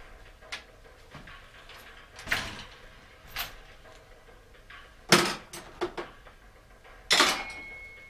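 A bicycle being handled at a workshop repair stand and set down on the floor: several separate metal clanks and knocks, the loudest about five and seven seconds in, the last leaving a thin metallic ring.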